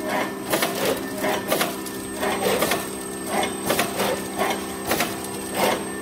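Clay extruding and pillow packing machine running: a steady motor hum with repeated mechanical clacks, roughly two a second.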